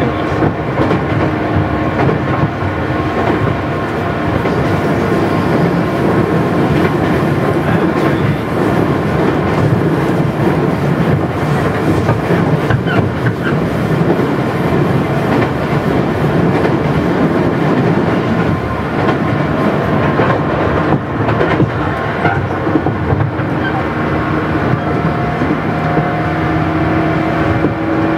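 Running sound of a JR West 117 series (100 subseries) electric train heard from inside the passenger car: a dense, steady rumble of wheels and traction motors with light clacks over the rail joints. A steady hum comes in briefly near the start and again in the last few seconds.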